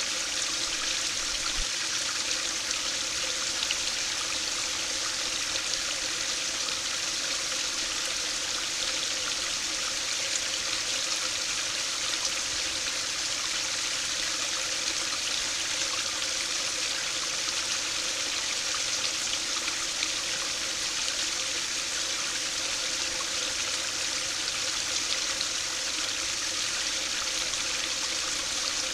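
A small stream pouring through a notch in a low concrete sill into a shallow pool: a steady splashing trickle of water.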